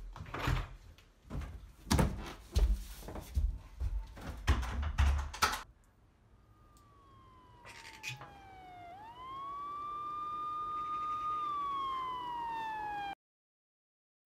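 A run of about ten heavy thumps and knocks over the first six seconds, then a siren wailing: its tone falls, sweeps up and holds, then falls again, and it cuts off abruptly near the end.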